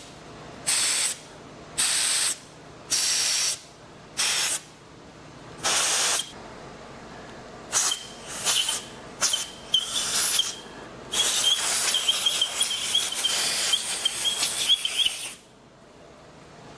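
Compressed-air blow gun blasting machine-shop debris and metal bits out of the threaded bolt holes of a new engine block: five short bursts about a second apart, then a quick run of shorter ones, and finally one long blast of about four seconds with a faint whistle from the nozzle.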